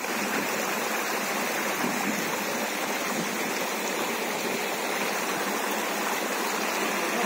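Water running over mossy rocks in a small stream, a steady, even flowing noise with no break.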